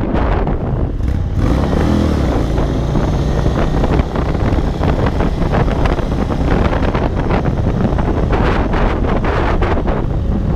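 2022 Indian Chief Dark Horse's air-cooled Thunderstroke 116 V-twin running steadily under way, with wind buffeting the mounted camera's microphone.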